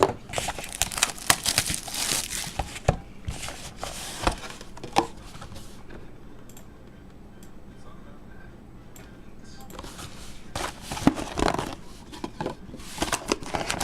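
Plastic shrink-wrap being torn and crumpled off a sealed trading-card box, crinkling in irregular bursts. There is a quieter stretch with a few light clicks in the middle.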